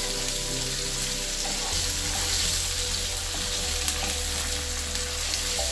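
Onions and tomato paste frying in oil in a frying pan, a steady sizzle. A plastic spoon stirring through it adds a few faint ticks.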